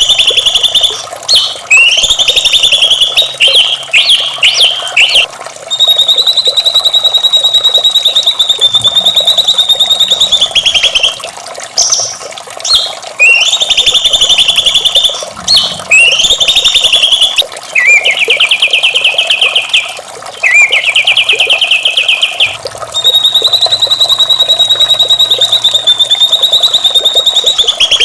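White-rumped shama singing loudly in repeated phrases: short whistled bursts, long held buzzy notes, and two fast rattling trills in the middle.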